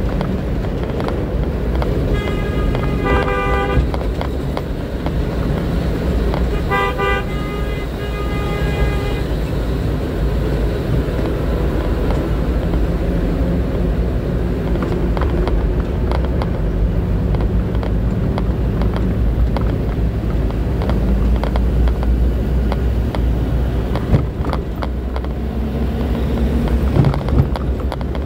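Steady low engine and road rumble from a vehicle driving in heavy traffic. A horn honks in short blasts about two seconds in and again about seven seconds in. A few sharp knocks come near the end.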